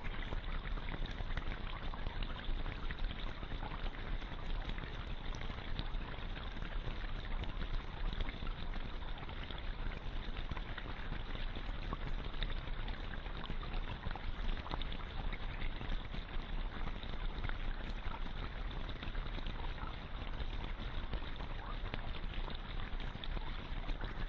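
A steady, even rushing noise with no voice or tune.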